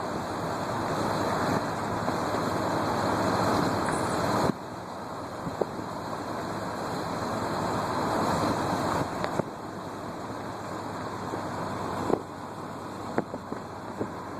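Road noise of a moving car: a steady rush of tyres and wind that slowly builds and drops off sharply three times, with a few light knocks.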